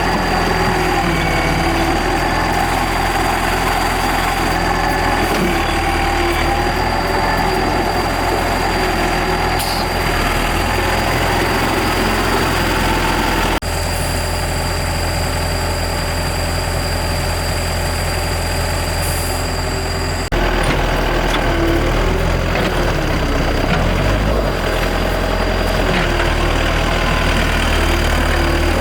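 Large excavator's diesel engine running steadily, with a thin high whine over it; the sound changes abruptly twice, about halfway and two-thirds of the way through.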